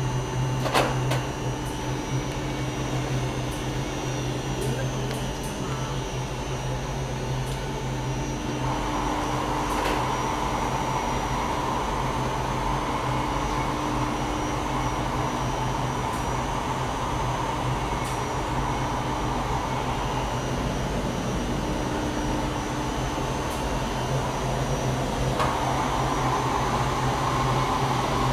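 Smog Hog industrial air cleaner on a 15,000 CFM kitchen exhaust system running: a steady drone of fan and rushing air over a low hum. The rushing grows louder about nine seconds in and again near the end, and there is a sharp click just under a second in.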